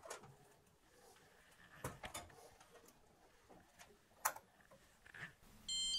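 A few faint, scattered clicks and light knocks as a probe thermometer's wire and display unit are handled and fixed to an oven door. Near the end, a steady electronic beep sounds for under a second.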